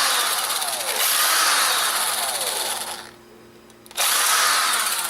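Small handheld power drill-driver running in two spells, about three seconds, then a one-second pause, then again near the end, as small screws are worked out of a camera's casing.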